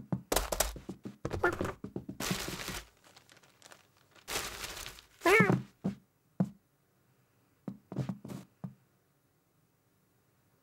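Cartoon cat sound effects as the cat hunts a housefly: several short rustling, scuffling noises, a brief chirping cry about five seconds in, and a few soft clicks.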